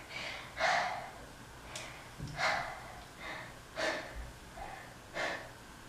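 A woman's short, breathy gasps and exhales, a series of them roughly one a second, with no words.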